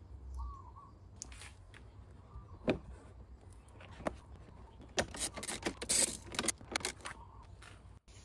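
A handful of small steel hex-head bolts jingling and clinking together in a hand, with scattered sharp metallic clicks that come thickest about five to seven seconds in.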